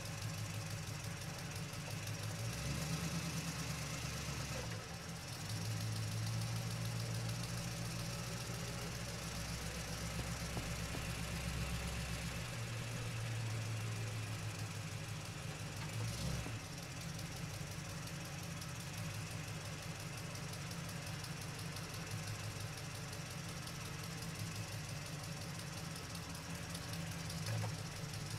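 Axial SCX10 radio-controlled crawler's electric motor and gear train droning steadily as it drives over a dirt trail, heard through its onboard camera, with a short knock about sixteen seconds in.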